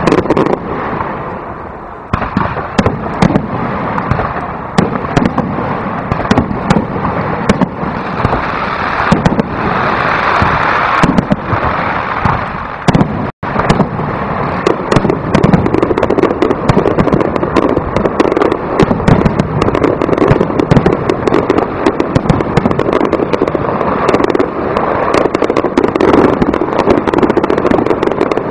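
Aerial fireworks display: a dense, unbroken barrage of shell bursts and crackling, many bangs a second. The sound cuts out for an instant about 13 seconds in.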